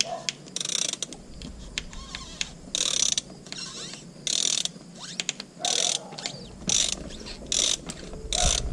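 Ratchet wrench with a long extension being worked back and forth, clicking in about seven short bursts, as it loosens a bolt on the DCT470 dual-clutch transmission's mechatronic unit.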